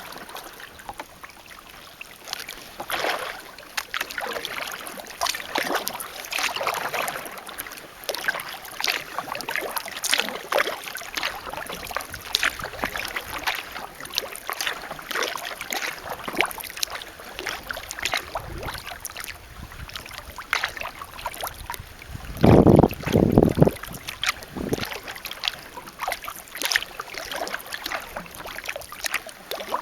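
Kayak paddle strokes, the blades dipping and splashing into the water at a steady pace, about one every second or so. About three-quarters of the way through comes a brief, louder low rumble.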